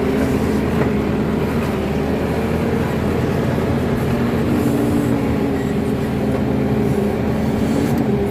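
Kato crawler excavator's diesel engine running steadily under working load while the bucket digs and dumps soil, its pitch shifting slightly as the hydraulics work.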